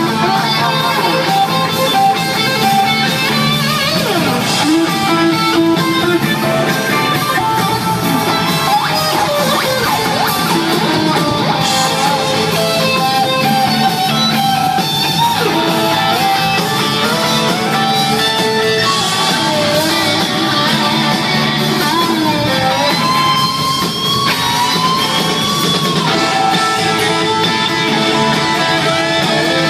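A rock band playing live, with an electric lead guitar playing sliding, bent notes over the band.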